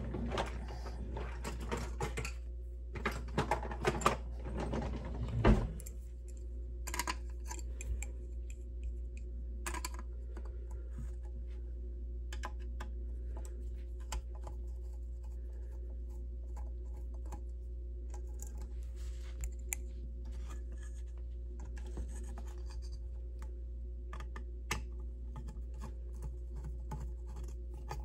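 Handling noise and rustling with a sharp thump about five seconds in, then a screwdriver backing small screws out of a circuit board: scattered faint clicks and scratches over a steady low hum.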